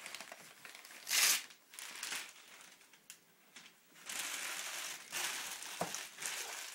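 Wrapping paper crinkling and rustling as a gift box is unwrapped, with a short loud rustle about a second in and a longer stretch of crinkling from about four seconds in.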